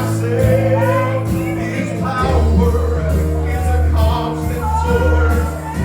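Live gospel praise music: a band plays a steady beat under long held bass notes while voices sing.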